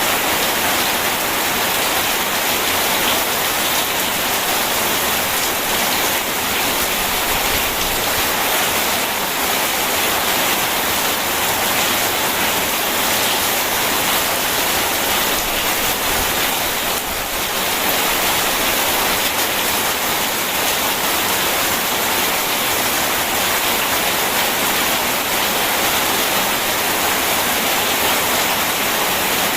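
Steady hiss of rain mixed with rushing river water, an even wash of noise with no distinct drops or rumbles.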